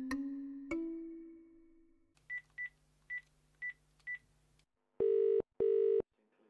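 A few piano notes ring out and fade over the first two seconds. Then five short high beeps as a number is tapped into a mobile phone, and a telephone rings with two short rings in quick succession, a double ring.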